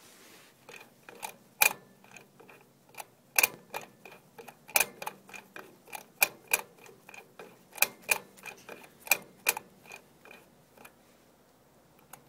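Combination dial of a Mosler MRK-302 safe lock being turned by hand, giving a run of sharp, irregular metallic clicks with a faint ring, a few of them much louder than the rest. The clicks stop about a second before the end.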